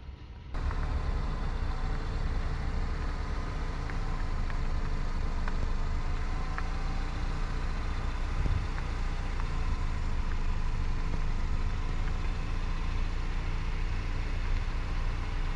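A vehicle driving, with a steady low rumble of road and engine noise. It starts abruptly about half a second in.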